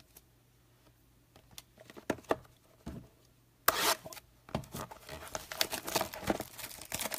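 Plastic card packaging being torn open and crinkled: a few light clicks and rustles, a sharp tear about four seconds in, then steady crinkling.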